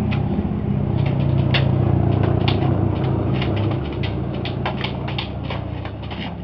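Airsoft guns firing: scattered sharp clicks, irregular and a few a second, over a steady low hum that fades after about four seconds.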